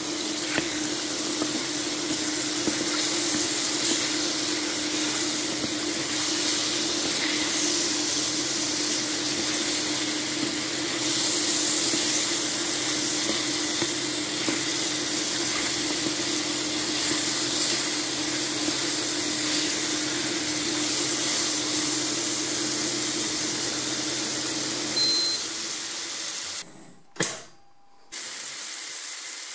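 Champignons sizzling in hot olive oil in a cast iron pan: a steady frying hiss over a steady low hum. Near the end the sizzle drops away and there is one sharp click.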